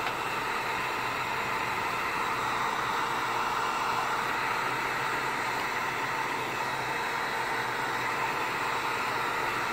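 Heat gun running steadily, a constant rush of blown air, heating the screen edge to soften the adhesive that holds the glass.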